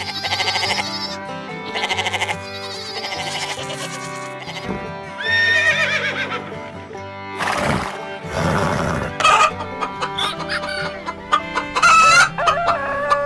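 Farm animal calls, several in turn, over background music.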